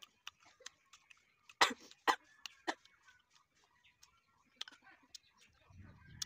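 Bites and chewing of crisp jujube fruit: a run of short, sharp crunches and clicks, the loudest three close together about one and a half to two and a half seconds in.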